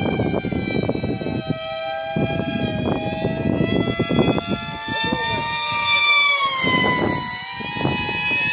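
Radio-controlled model planes, among them a model F-117 jet, flying overhead: a steady high whine from their motors, the pitch sliding slowly up and down as they pass. Wind rumbles on the microphone underneath.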